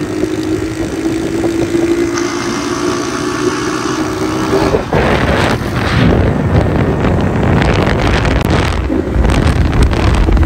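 A vehicle engine running with a steady hum for about the first five seconds, then wind buffeting the microphone takes over as a loud low rumble.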